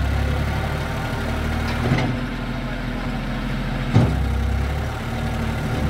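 Diesel farm tractor engine running steadily while pulling a loaded trailer, its low drone weakening for a couple of seconds mid-way. A short knock about two seconds in and a sharper, louder knock about four seconds in.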